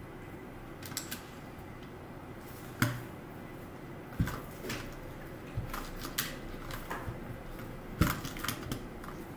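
Irregular clacks and clicks from a mechanical keyboard as keycaps are pressed onto its switches and the keys are pressed down, a few at a time rather than steady typing. The loudest clacks come about three, four and eight seconds in.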